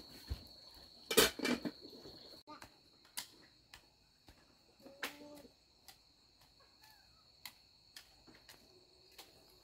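Insects chirping in a steady high-pitched drone, with scattered light knocks and clicks. The loudest is a short clatter about a second in.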